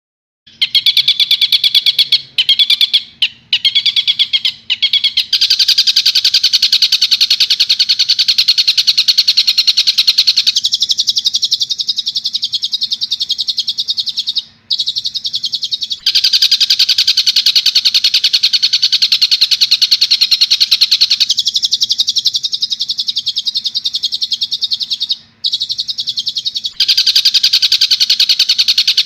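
Tengkek buto kingfisher call played as a bird-training recording: a dense, rapid chatter of high repeated notes, many per second, broken by a few short pauses near the start and two brief gaps later. A faint steady low hum runs underneath.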